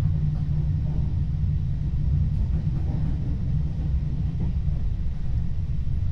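Passenger train running, heard from inside the carriage: a steady low rumble without let-up.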